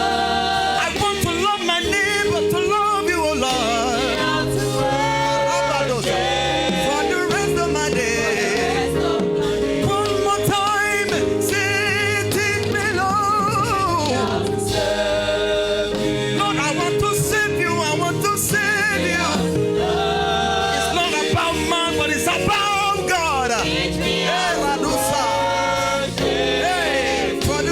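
Gospel choir singing with a band, the voices bending and gliding over sustained keyboard chords and a steady bass beat.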